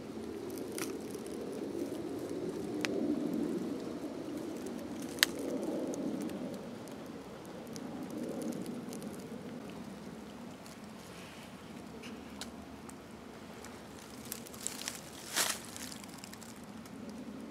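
Footsteps crunching and rustling through dry fallen leaves, swelling and fading as the walker moves, with a few sharp snaps or clicks: one about five seconds in and a small cluster near the end.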